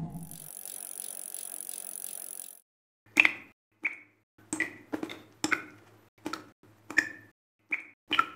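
Experimental electronic sound piece: a high hiss that cuts off suddenly about two and a half seconds in, then, after a brief silence, a string of about nine sharp clicks at uneven intervals of half a second to a second, each with a low hum under it.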